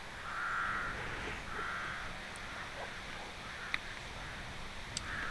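A crow cawing twice, two hoarse calls about a second apart, over faint steady outdoor background noise.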